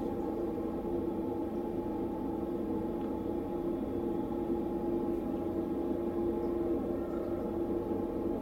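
Steady machine hum with a strong low held tone and fainter higher tones over a low rumble, unchanging throughout.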